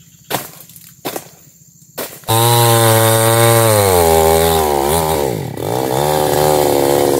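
A few sharp knocks, then a mini chainsaw starts running loudly about two seconds in, its engine pitch sagging and wavering as the chain bites into the oil palm trunk, then picking back up.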